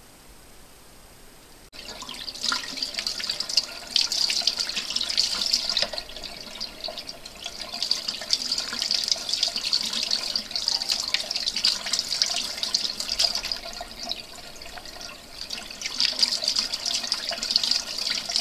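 Kitchen faucet running, the water splashing over a smelt being rinsed by hand under the stream and into the sink. The water comes on suddenly about two seconds in.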